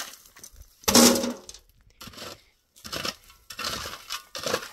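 A run of sharp clinks and scrapes of hard objects, five or six in a few seconds, the loudest about a second in.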